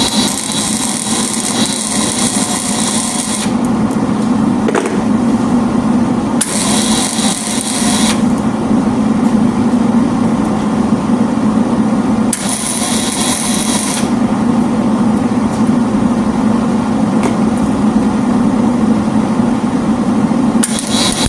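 Electric welding arc crackling and sizzling over a steady low buzz. Its bright hiss cuts in and out in several runs, each a couple of seconds long, as short welds are laid down.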